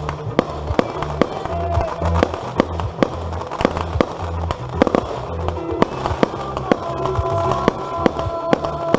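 Fireworks going off in many sharp, irregular bangs, a few each second, over music with a steady bass line.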